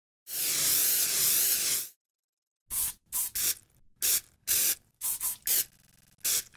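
Aerosol spray-paint can hissing: one long spray of about a second and a half, then after a short gap a run of about nine quick, short sprays.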